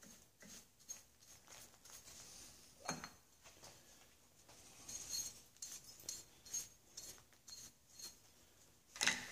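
Scattered quiet clinks and knocks of a cast box bed and its hold-down clamps being unclamped and lifted off a shaper table, with a louder knock about three seconds in and another near the end.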